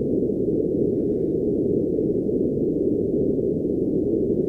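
Synthetic colour-noise sample: a steady, deep, muffled rushing noise with all its weight in the low range and nothing high, like the sound inside a submarine or underwater.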